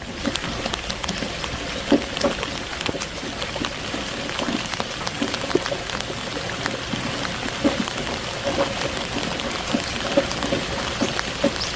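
Steady rain falling, with many distinct drops striking nearby surfaces.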